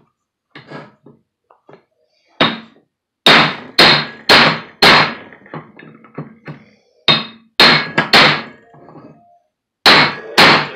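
About ten hard hammer blows on the steel yoke of a Ford F-250's double-cardan CV drive-shaft head, each a sharp metallic ring, in three bursts. The blows are driving a stuck universal-joint bearing cap out of the yoke.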